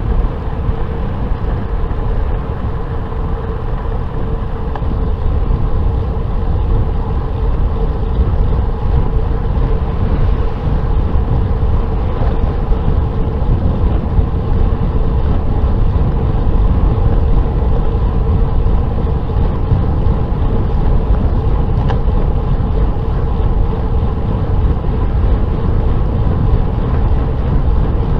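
Wind buffeting the microphone of a bicycle-mounted camera while riding, a continuous low rumble mixed with road noise, with a faint steady whine underneath.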